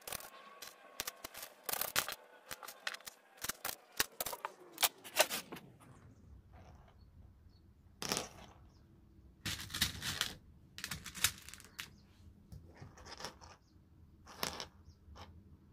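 Plastic pony beads clicking and clacking against each other and the tabletop as a beaded string is handled, in quick runs of small sharp clicks, busiest in the first few seconds, then in short clusters.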